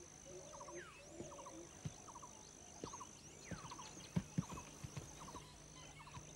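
Faint wild grassland ambience: a steady high insect drone, a short repeated chirp about once a second, and scattered bird calls. A few soft knocks come about four seconds in.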